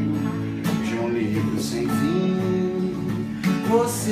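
Music: acoustic guitar strumming a song's accompaniment, with a gliding melody line over it, between sung verses.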